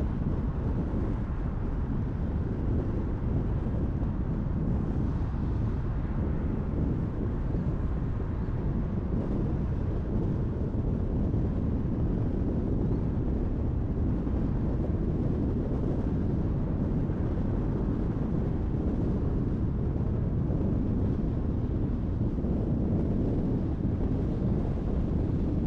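Steady road noise of a car driving at speed: tyre rumble and wind in an even low roar with no distinct events.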